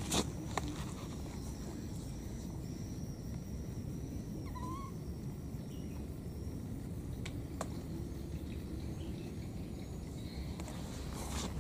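Outdoor ambience by water: a steady low rumble with a thin, high, steady tone through the first half. A few small clicks, and one short chirp about four and a half seconds in.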